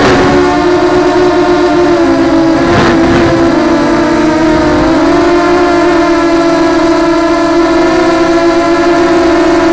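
Electric motors and propellers of a 200 mm FPV quadcopter, recorded by its onboard Mobius camera: a loud, steady multi-toned whine that wavers slightly in pitch with throttle. A brief rush of air comes about three seconds in.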